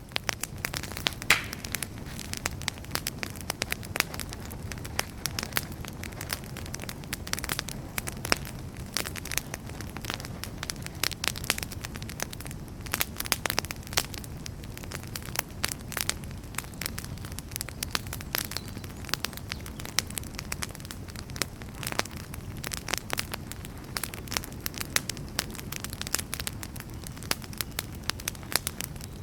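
Campfire crackling, with frequent irregular sharp pops and snaps over a steady low rumble of the burning fire.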